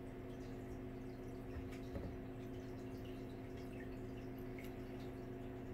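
Quiet room tone with a steady electrical hum, dotted with faint small ticks and a slightly louder tick about two seconds in, from a metal divider being handled on a wooden drawing board.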